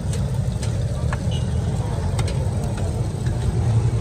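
Steady low rumble of street background noise, with a few light metal clinks of a serving spoon on steel tableware at the stall.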